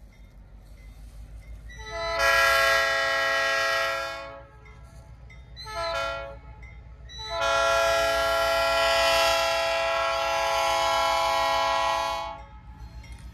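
Diesel locomotive air horn sounding a long blast, a short blast, then a second long blast of about five seconds, as it approaches a road grade crossing. A low engine rumble runs underneath.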